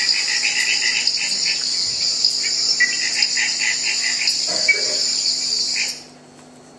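Recorded rainforest ambience played over loudspeakers: a steady high insect buzz with short chirping calls repeated over it, cutting off suddenly about six seconds in.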